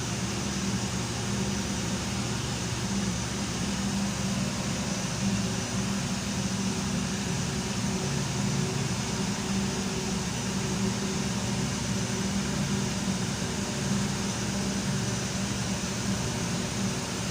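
Steady low hum of running machinery, a constant drone with a few steady low tones and no change in level.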